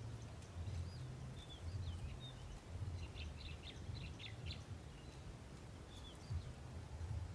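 Small birds chirping and whistling in short notes and quick glides, with a rapid run of chirps a few seconds in, over a low, uneven rumble.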